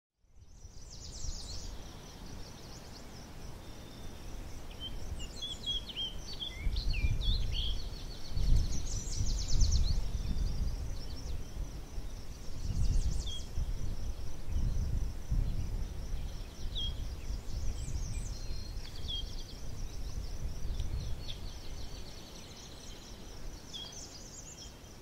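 Rural outdoor ambience: birds chirping and trilling, with uneven gusts of wind rumbling on the microphone.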